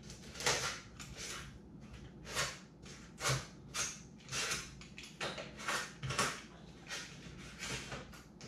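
Utility-knife blade sawing back and forth through cured foam, a quick run of short scraping strokes, about one and a half a second.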